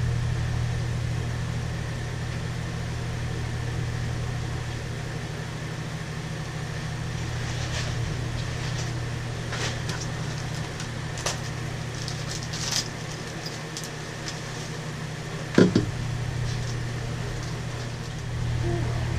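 A steady low mechanical hum, with scattered light clicks and scrapes partway through and one sharp knock about fifteen and a half seconds in.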